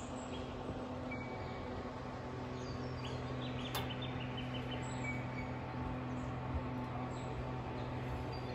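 Outdoor ambience: a steady low hum, with a short run of high bird chirps about three and a half seconds in.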